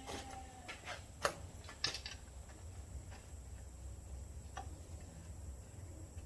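A few light clicks and taps of small metal parts being handled and fitted, most of them in the first two seconds and one more past the middle, over a low steady hum.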